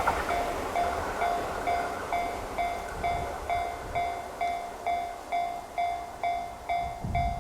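Railroad crossing warning bell on the Chuo Line ringing steadily, about two strikes a second, each a single decaying tone. The rumble of a passing train fades out under it in the first seconds.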